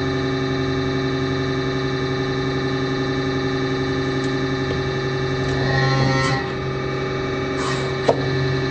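Slowed-down sound of a hydraulic press crushing a tomato: a steady, deep drone from the press, a drawn-out squelch swelling about six seconds in, and a sharp click near the end.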